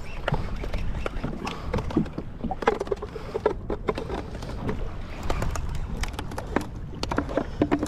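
Water lapping and slapping against a plastic kayak hull on choppy swell, with a low rumble of wind on the microphone and irregular small knocks and taps of gear on the hull.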